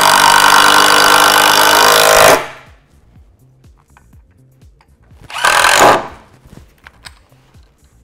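Cordless drill-driver driving screws into a timber brace: one steady two-second run that stops about two seconds in, then a second short burst about five and a half seconds in.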